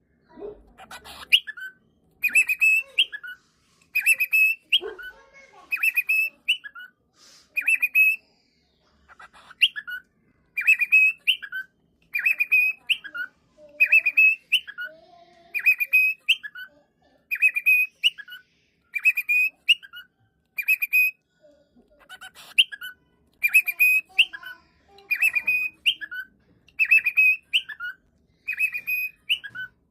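Cockatiel calling over and over, about one loud call a second, each call a shrill higher note dropping to a lower one, with a short break about a third of the way through.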